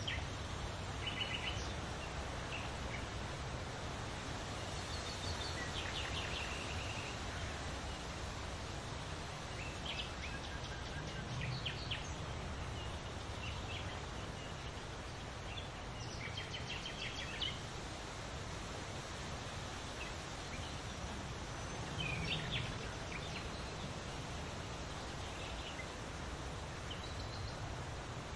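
Wind rustling through leaves as a steady hiss with a low rumble, with small birds chirping in short quick trills every few seconds.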